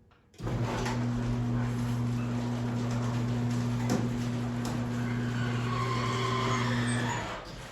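Chain-drive garage door opener running with a steady motor hum over the rattle of the chain and the moving door, starting about half a second in and cutting off about seven seconds in. The opener is being run as a test of the freshly tightened drive chain.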